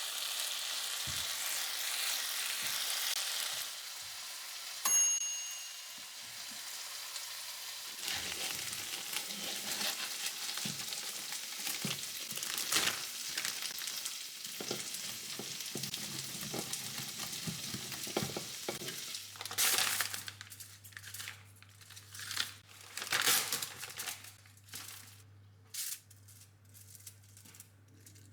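Food sizzling in a frying pan and being stirred, with utensil scrapes and knocks against the pan. There is a short ringing ping about five seconds in. A low steady hum comes in past the middle, under more clatter.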